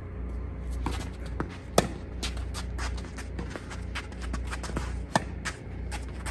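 Footsteps and shoe scuffs on a tennis court, with scattered light taps and two sharper knocks, about two seconds in and about five seconds in, over a steady low hum.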